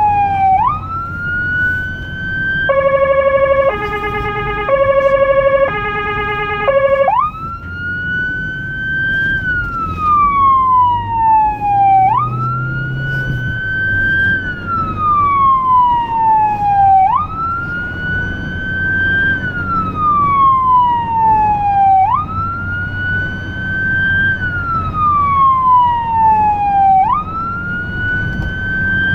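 Electronic emergency-vehicle siren heard from inside the car's cabin. Its wail jumps up quickly and then falls slowly, repeating about every five seconds. A few seconds in, for about four seconds, it switches to a chopped tone alternating between two pitches, then goes back to the wail.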